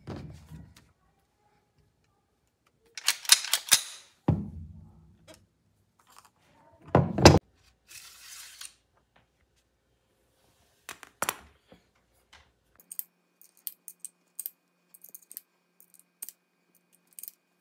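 Metal clicks, knocks and clatter from a Winchester .22 semi-automatic rifle being handled, with a brief scraping slide as the inner tube of its tube magazine is drawn out. The loudest are a rattling clatter about three seconds in and a sharp knock about seven seconds in, followed later by a run of small light ticks.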